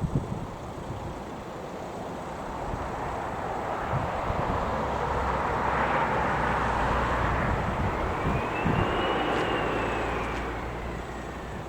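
Aircraft passing, its engine noise swelling to a peak about halfway through and then fading, with a whine that rises and then falls in pitch. Gusts of wind buffet the microphone throughout.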